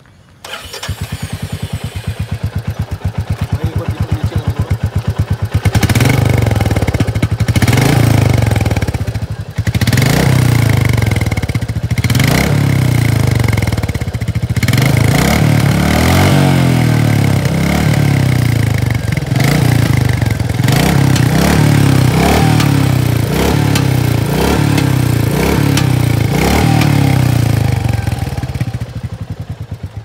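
Royal Enfield Meteor 350's single-cylinder engine starting and idling with an even, rapid thump, then revved over and over in short blips through its exhaust, each rev rising and falling; the sound falls away near the end.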